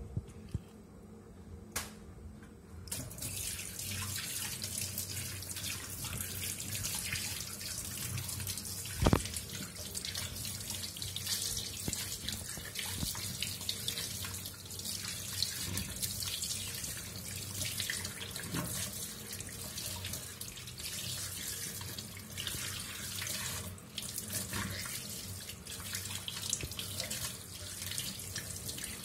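Kitchen tap running into a stainless steel sink, water splashing over fish being rinsed by hand; the water comes on about three seconds in. A single sharp knock against the sink stands out near the middle.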